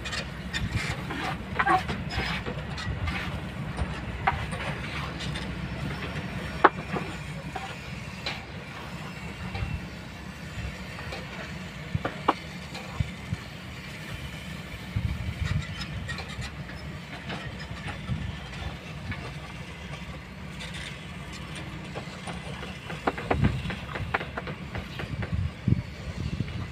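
Kobelco hydraulic excavator's diesel engine running, a steady low rumble, with scattered sharp clanks and knocks, the loudest about a third of the way in.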